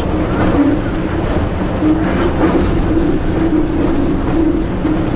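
Cab noise of an EP1 electric locomotive under way: a steady rumble and hum, with the wheels knocking over rail joints a few times.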